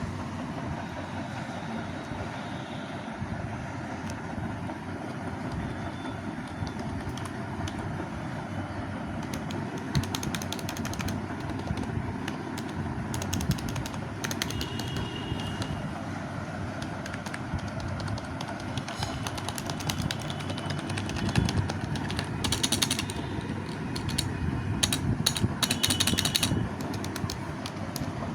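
Keys of a Logitech K120 membrane keyboard clicking in scattered short bursts, thickest in the last third, over steady background noise.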